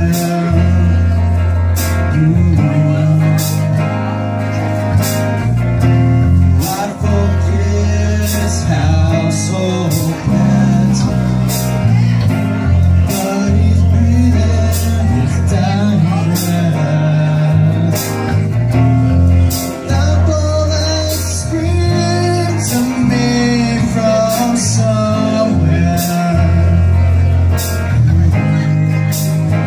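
Live rock band playing: distorted electric guitar, electric bass, a drum kit with cymbal strokes about once a second, and a male lead vocal at the microphone.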